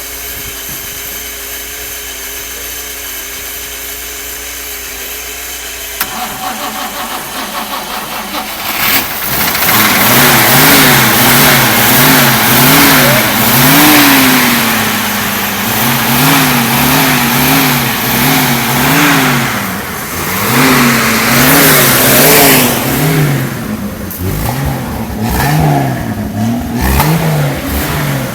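A 1966 Aero Willys Itamaraty's 2.6-litre straight-six with twin carburettors is started after six years standing. First comes a steady whine of cranking for about six seconds. The engine then catches, runs unevenly for a few seconds, and is revved up and down repeatedly.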